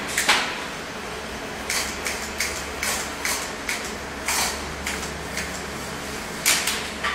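Look Keo Blade road pedal being screwed by hand into a Campagnolo crank arm: a run of short scraping clicks, about three a second, as it turns in the threads, with a louder click near the end.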